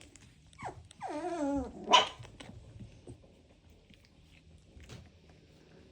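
Young puppy vocalising: a short falling yelp, a longer wavering whine, then a sharp little bark about two seconds in, after which it goes quiet.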